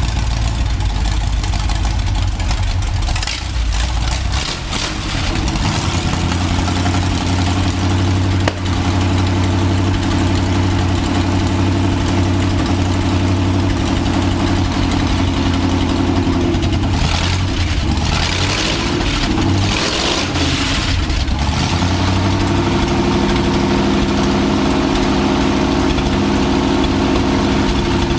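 1950 Buick straight-eight engine with dual carburettors, running through straight side-exit exhaust pipes and idling steadily. About two-thirds of the way through it is revved a few times, then it settles back to idle.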